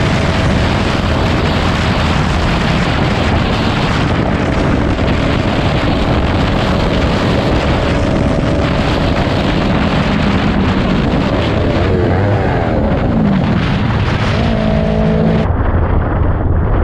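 Motorcycle riding at freeway speed: steady wind rush on the helmet-mounted microphone with the engine's hum underneath. About twelve seconds in, the engine note drops and climbs back up. Near the end the sound turns abruptly duller.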